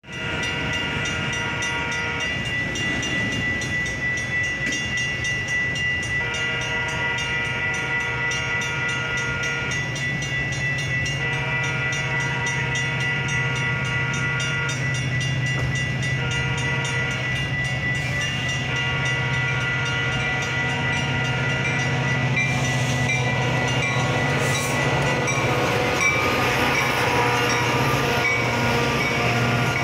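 Metra commuter train approaching a grade crossing, its horn blowing the crossing signal of long, long, short, long blasts while the crossing bell rings steadily. A low diesel rumble grows as it nears, and from about 22 seconds in the bilevel cars roll past with rising wheel and rail noise.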